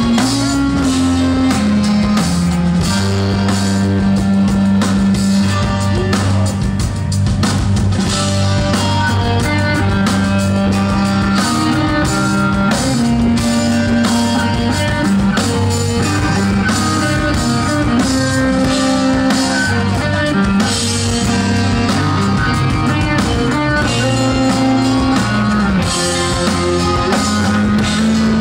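Live instrumental post-rock: electric guitar and drum kit playing over low bass notes that shift every second or two, with no vocals.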